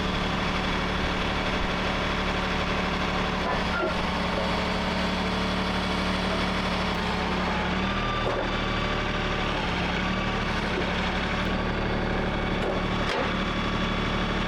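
Portable band sawmill's engine running steadily, its note shifting about eight seconds in.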